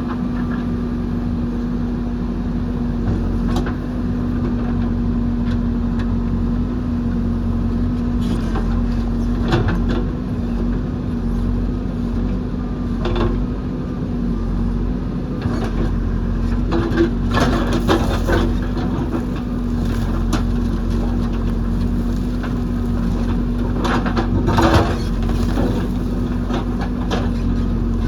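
JCB backhoe loader's diesel engine running steadily under work, with scattered knocks and clatters of the bucket working earth and rock, more of them in the second half.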